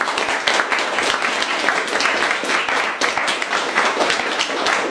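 A room of people applauding, many hands clapping at once at a steady level.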